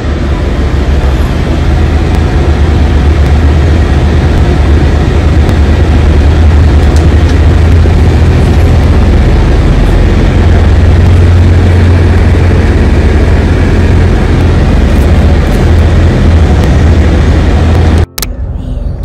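Steady loud rumble of engine and road noise inside a moving bus's cabin, with no speech over it. It cuts off abruptly just before the end.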